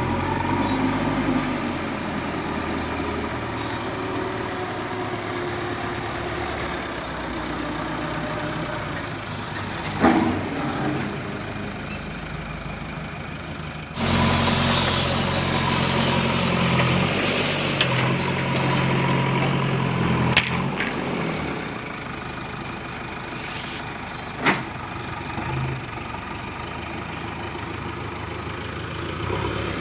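Diesel engine of a JCB 3DX backhoe loader running under work. It steps up suddenly louder about halfway through and settles back later, with a few sharp knocks in between.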